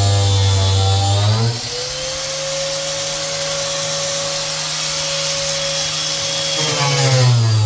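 Electric power tool motor running steadily. It speeds up to a higher, steady pitch about a second and a half in, then slows back to its lower pitch near the end.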